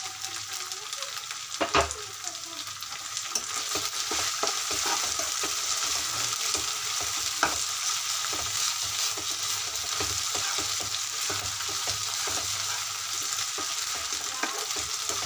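Sliced onions, green chillies and curry leaves sizzling in hot oil in a kadai, with a slotted spatula scraping and clicking against the pan as they are stirred. A sharper knock about two seconds in.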